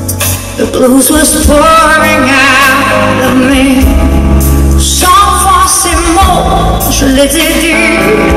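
Live band performance: a woman sings the lead vocal with a wavering vibrato over electric guitar and a heavy bass, heard in a large hall.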